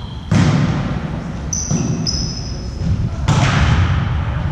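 A volleyball struck twice, about three seconds apart: sharp smacks that echo around a gymnasium hall. Short high squeaks of players' shoes on the court floor come in between.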